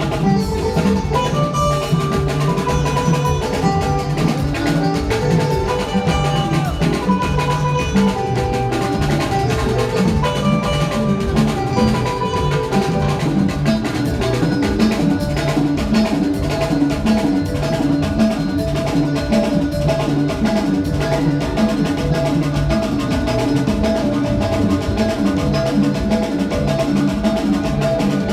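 Live band playing an instrumental groove with drum kit and percussion, a keyboard or steelpan-like melody and guitar over a steady beat.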